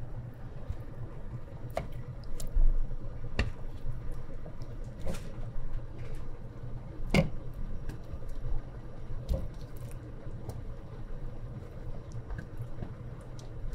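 Kitchen tongs setting sautéed tomato slices one by one onto a stew in a pot: soft squishes of the tomatoes and light clicks of the tongs about every two seconds, over a low steady hum.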